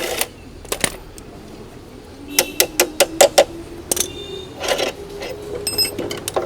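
Metal tools and axle hardware clicking and clinking as an electric scooter's front axle is undone and the wheel taken out: a quick run of about six sharp clicks in the middle, then a couple of short ringing metallic clinks and a scrape.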